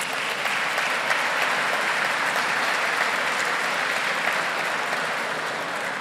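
Audience applauding, dense and steady, easing off near the end.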